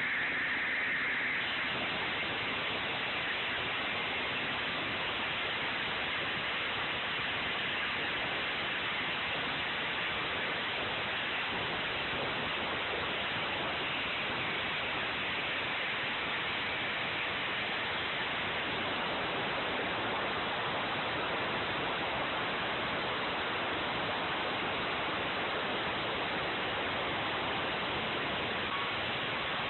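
Large walk-behind concrete floor saw cutting through a concrete slab, its blade grinding in the cut with a loud, steady hiss that does not let up.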